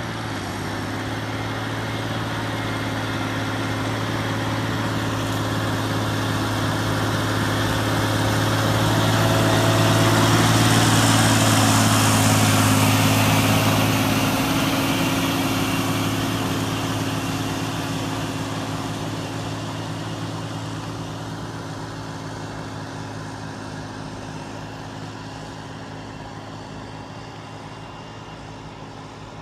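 John Deere 8320T tracked tractor's diesel engine pulling a plough under load, a steady drone that grows louder as it approaches, is loudest about eleven seconds in, then drops slightly in pitch and fades as it moves away.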